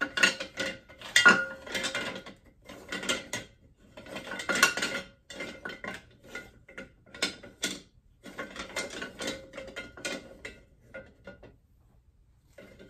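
Wooden cooking spoons and spatulas clattering against one another and against a ceramic utensil crock as they are put in and arranged: quick clusters of knocks and clicks that thin out near the end.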